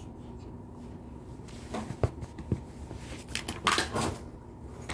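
Scattered knocks, clicks and light clatter of things being handled and moved about while someone searches for a misplaced tool, with a denser burst of clatter about three and a half seconds in.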